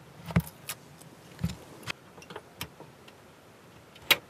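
Irregular clicks and light knocks of small hard parts and tools handled on a modelling workbench. Two carry a dull thump, about half a second and a second and a half in. The sharpest, loudest click comes near the end.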